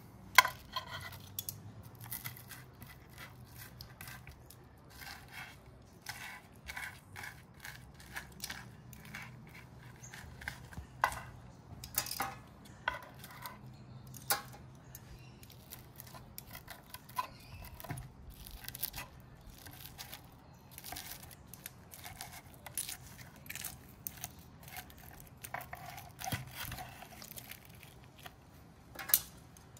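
Forks and a spoon working over a whole grilled snapper on a wooden board: scattered metal scrapes, clicks and taps as the flesh is pulled off the bones.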